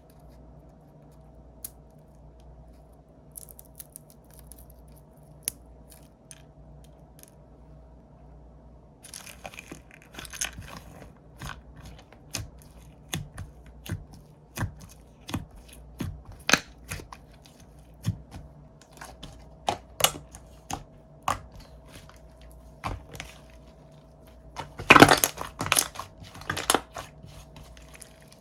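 Slime being squeezed, stretched and poked by hand, giving sticky clicks and pops: a few scattered ones at first, then a steady run from about nine seconds in, with a louder cluster of crackling pops near the end.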